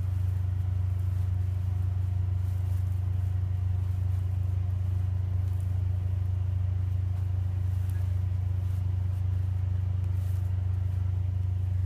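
Truck engine idling steadily, a low even hum with no change in speed.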